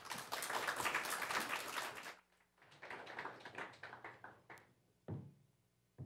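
Audience applauding; the applause cuts off abruptly about two seconds in and thins to a few scattered claps, with a dull thump near the end.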